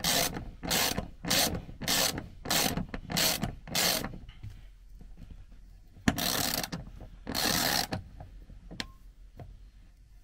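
Ratchet wrench clicking as it is swung back and forth to tighten a nut on a bolt fitting in a wooden beam: about seven quick strokes, a short pause, then two longer strokes and a last single click.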